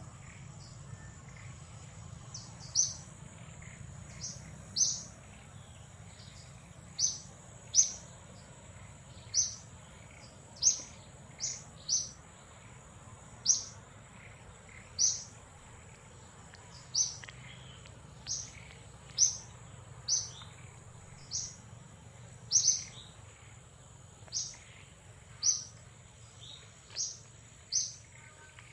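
Repeated short, high-pitched animal chirps, about one every second, over a steady high whine.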